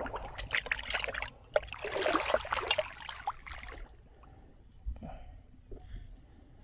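Pond water splashing and sloshing in bursts for about the first four seconds, then quieter.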